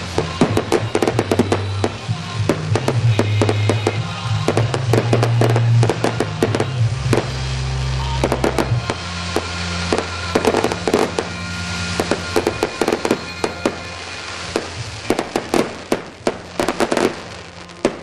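Fireworks going off: a rapid, continuous string of bangs and crackles, over music with a steady bass.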